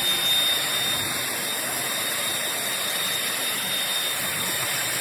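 Eureka Blaze cordless stick vacuum running steadily: a rushing airflow with a thin, high, steady whine from the motor.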